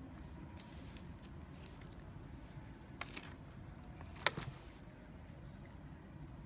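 Jelly cube slime being squeezed and poked by hand, giving soft, scattered crackles and small pops. There is a cluster about three seconds in and the sharpest pop just after four seconds.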